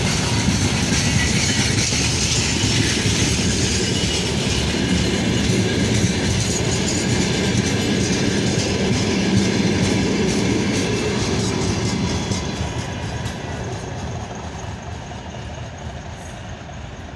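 Freight train wagons rolling past close by, a steady heavy rumble of wheels on the rails. About twelve seconds in, the noise begins to fade away as the end of the train goes by.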